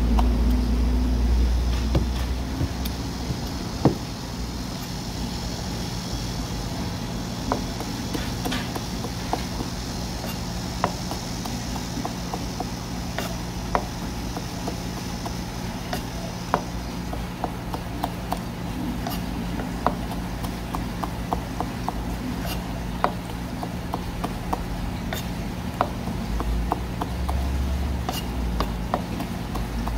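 Knife clicking against a cutting board in a long, uneven run of short sharp taps as small gizzard shad are sliced into sashimi, over a steady low hum. A hiss sits behind the first half and stops partway through.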